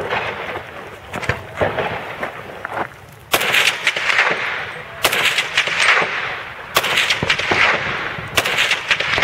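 M1 Carbine (.30 Carbine, semi-automatic) fired in a slow string of about five shots, one every second and a half to two seconds, each crack trailing off in a long echo off the quarry walls.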